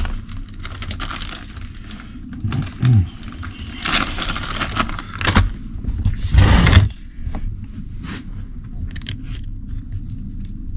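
Hands working on a nitro RC buggy's air filter: scraping, rustling and small clicks of plastic and rubber parts, with two louder handling bursts about four seconds in and a couple of seconds later.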